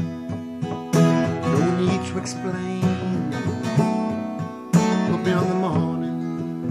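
Acoustic guitar strummed, with hard strums about a second in and again near five seconds, chords ringing between them.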